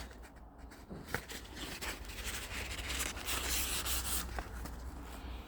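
Rubbing and scraping of cardboard bulb packaging being handled and opened to take out a festoon bulb, with a few light clicks.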